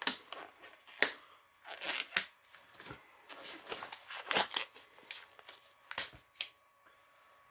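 Nitrile gloves being pulled onto the hands: rubbery rustling and crinkling, with several sharp clicks scattered through it.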